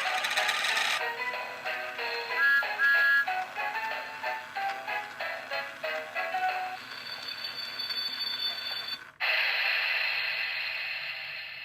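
Tinny electronic music: a melody of short, stepped notes. About nine seconds in it breaks off abruptly into a long held tone that slowly fades.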